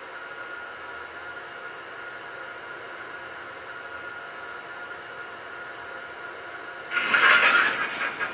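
Sound system of an MTH R40 model subway train playing a steady faint hiss with a constant tone, then a louder burst of hiss about seven seconds in.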